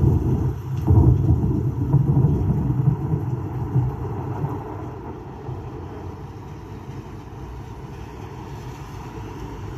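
Deep, thunder-like rumbling sound effect, loudest over the first few seconds, then dying away to a low, steady rumble.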